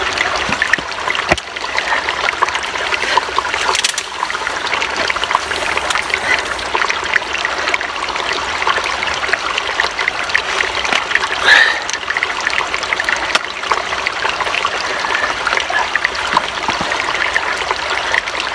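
Small spring trickling steadily as an arrow and a freshly shot grouse are rinsed in it, with one brief louder splash about two-thirds of the way through.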